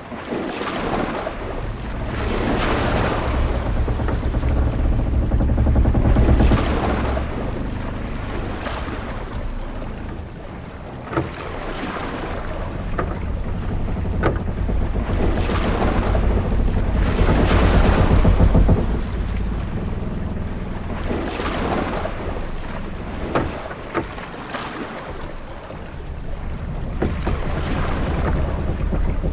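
Sailing-ship-at-sea ambience: waves washing and surging every few seconds over a deep low rumble of wind and water. A few short sharp knocks sound now and then.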